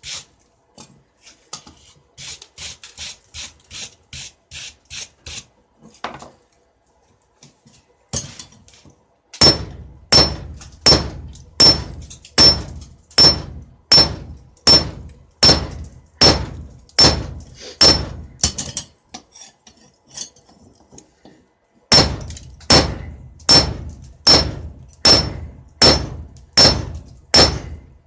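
Hammer blows on a knife blade over an anvil, about two a second, each blow ringing. They come in two long runs with a pause of a few seconds between, after a stretch of lighter, quieter strokes at the start.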